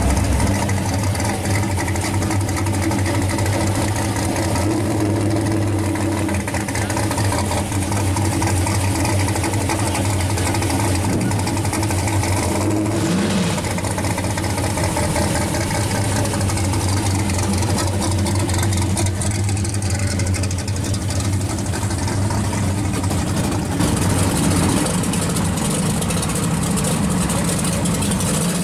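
First-generation Chevrolet Camaro SS V8 idling steadily, with one short blip of the revs about halfway through.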